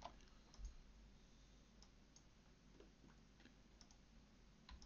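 Faint, scattered clicks of a computer mouse and keyboard being worked, with a dozen or so short, irregular clicks over quiet room tone.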